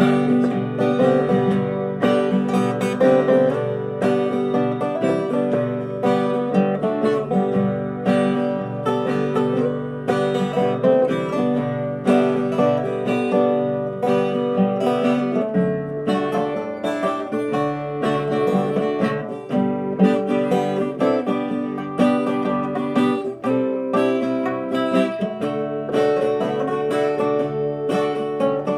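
Two acoustic guitars playing together without singing, strummed chords with picked notes over them in a steady rhythm.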